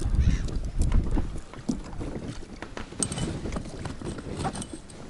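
Wind buffeting the microphone in a small boat, strongest in the first second or so, with scattered small knocks.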